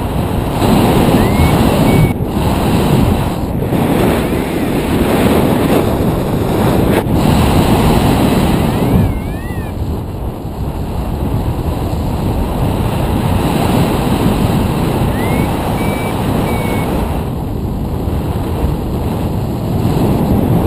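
Wind buffeting the microphone of a harness-mounted camera in paraglider flight, a loud, even rushing that swells and dips. Faint short high tones come through a few times.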